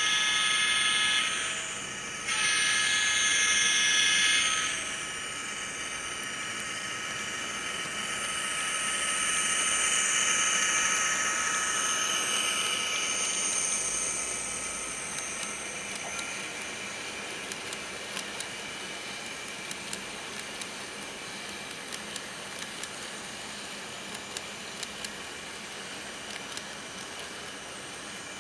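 Two blasts of a diesel locomotive horn played by the sound decoder's small speaker in an N-scale Amtrak P42 model, the second longer. The decoder's engine sound then swells and fades as the locomotives pass, followed by light irregular clicks of the passenger cars' wheels on the track.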